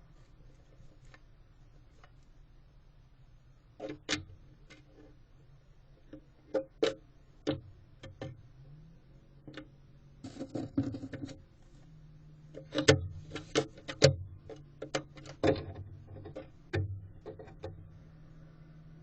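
Irregular knocks, taps and scuffs on wood, the sound of a barn owl moving about inside a wooden nest box, over a low steady hum. The knocks come in loose clusters, busiest in the second half.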